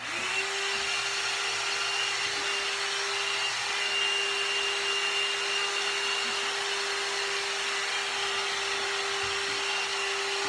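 One Step hair dryer and styler switched on: its motor spins up and then runs with a steady, very loud whine over a rush of hot air.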